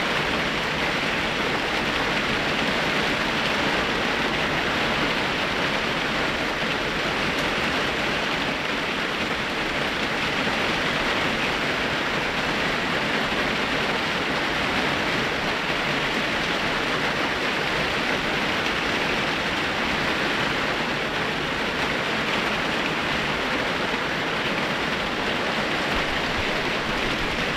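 Rain falling steadily, a dense even hiss that holds without let-up.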